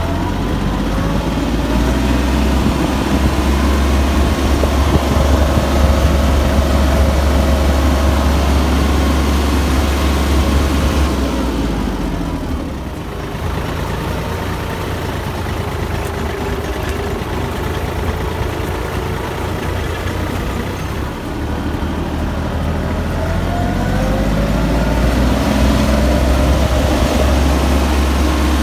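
Kubota GL-25 tractor's three-cylinder liquid-cooled diesel running. Its engine note drops about eleven seconds in and climbs again a few seconds before the end.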